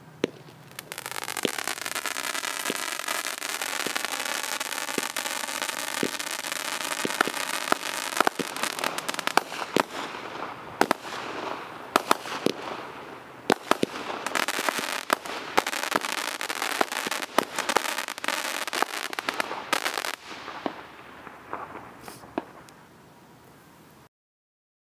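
The 'King of Diamonds' consumer firework going off: a dense, continuous hiss and crackle with many sharp pops and bangs, starting about a second in and running for over twenty seconds before cutting off suddenly near the end.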